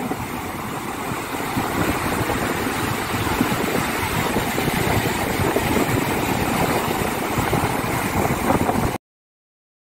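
Sea surf washing onto a sandy shore, with wind buffeting the microphone; the sound cuts off suddenly near the end.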